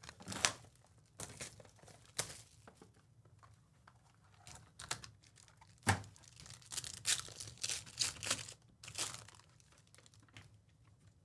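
A foil trading card pack wrapper being torn open and crinkled by hand, in irregular sharp crackles that are busiest a little past the middle.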